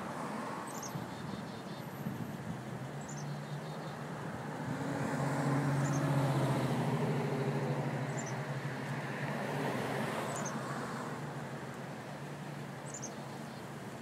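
A road vehicle passing over background traffic noise: its engine and tyre noise swells to a peak about six seconds in, then fades. Faint, thin, high bird notes in short descending runs come every two to three seconds.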